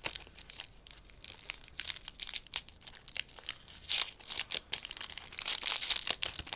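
Wrapping of a small gift package being crinkled and torn open by hand: irregular crackling and tearing, busier and louder from about four seconds in.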